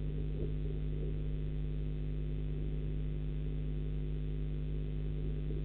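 Steady electrical hum from a nest-box webcam's audio line: a low buzz made of several fixed tones, with faint crackle over it and no bird calls.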